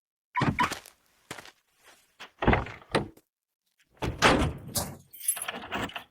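Car door sound effects: a series of short clunks, clicks and thuds in separate groups, the handle and latch working and the door shutting.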